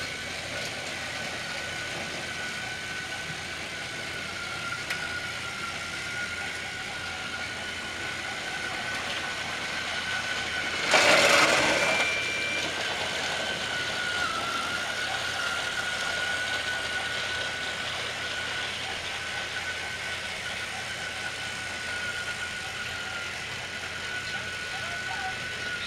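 Battery-powered TrackMaster toy train motors whining steadily at one pitch as the engines run along plastic track. About eleven seconds in, a brief loud burst of noise.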